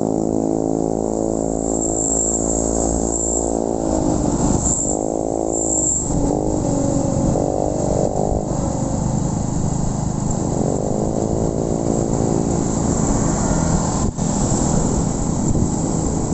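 Honda Win 100's single-cylinder four-stroke engine running as the motorcycle is ridden, its pitch falling and rising several times as the revs change.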